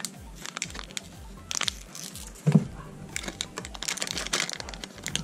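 Thin clear plastic wrappers crinkling and clicking as they are handled and pulled out of a plastic capsule, with a sharper knock about two and a half seconds in. Background music with a pulsing bass line runs underneath.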